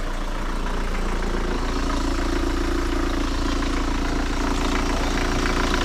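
Vauxhall Astra 1.7 CDTI four-cylinder diesel engine idling steadily, running again after an alternator replacement.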